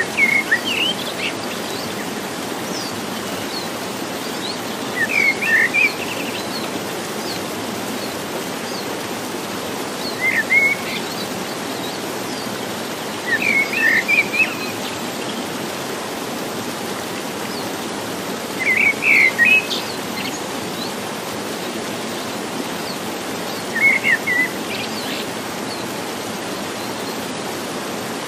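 Steady rush of a rocky stream, with a songbird giving short chirping phrases about every four to five seconds.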